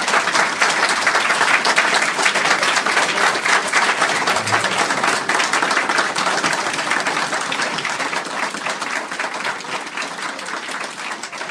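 Audience applauding, a dense steady clapping that slowly dies down over the last few seconds.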